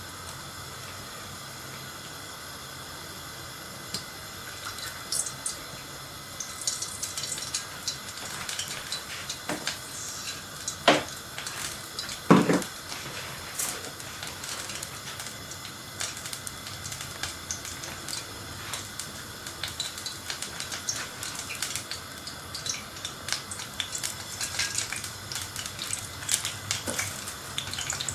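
Steady hiss of a gas stove burner under a steel pot as cooking oil heats in it, with light crackling and ticking from a few seconds in. Two sharp knocks come about halfway through.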